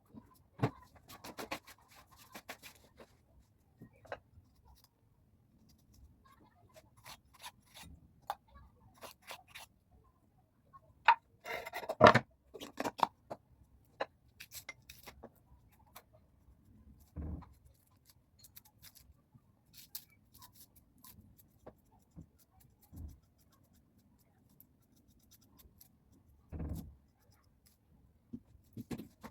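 Kitchen food-preparation handling: scattered clicks, taps and scrapes of utensils and containers, with a louder clatter of knocks about twelve seconds in and a few dull thuds later.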